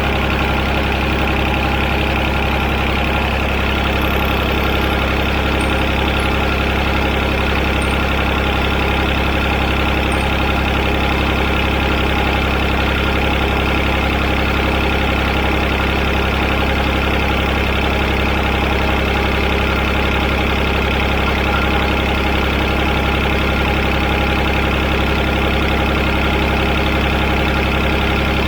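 John Deere tractor's three-cylinder Yanmar diesel engine idling steadily.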